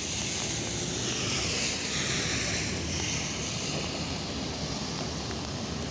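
Tyre hiss of a car passing on a wet road, swelling and dropping in pitch about two seconds in, over a steady low traffic rumble.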